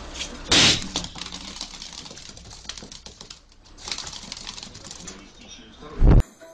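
A rubber balloon bursts with one loud bang about half a second in, then lighter scuffling. A loud deep thump comes near the end.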